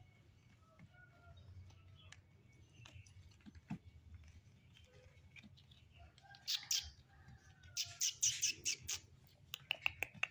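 Small puppies squeaking and whimpering as they wrestle, with louder bursts of high-pitched squeals from about six seconds in.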